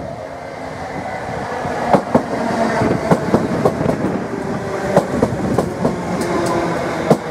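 London Midland electric multiple unit running past along the platform, growing louder over the first couple of seconds. Its wheels then click over the rail joints again and again as the carriages go by.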